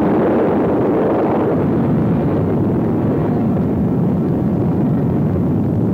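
Loud, steady low rumble of an atomic bomb detonation on the test film's soundtrack.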